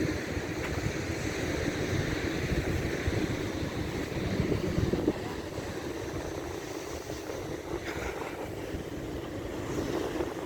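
Strong wind buffeting the microphone, with sea surf washing on the shore beneath it.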